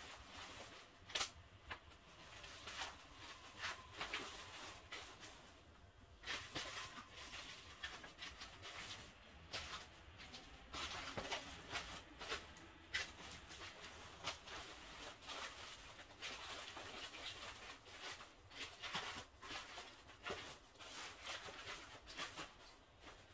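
Play pen's nylon fabric and mesh rustling and swishing irregularly as it is unfolded and spread out by hand, with a few sharp clicks.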